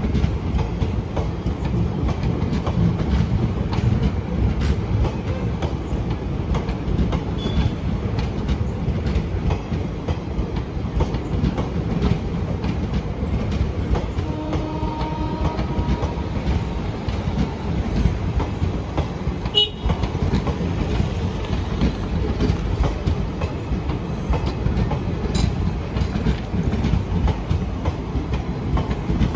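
Express train's passenger coaches running past at speed close by: a steady rumble with continuous clickety-clack of wheels over rail joints and one sharper clank about two-thirds of the way in.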